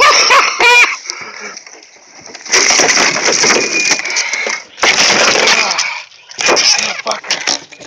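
Loud scuffling and thrashing noise in three long bursts as a big musky is handled aboard a small boat.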